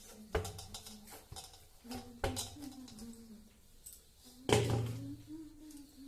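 Kitchen utensils and pots being handled: a few sharp metal knocks and clatters, the loudest about four and a half seconds in, with a short ring after it.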